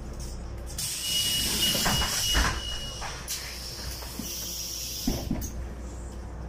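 City bus's pneumatic doors hissing as they work, with a steady high beep lasting about two seconds, over the low running of the bus's engine.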